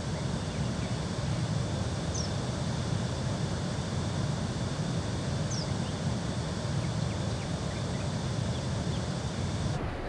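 Steady outdoor background noise, with two faint, short high chirps, one about two seconds in and one about five and a half seconds in.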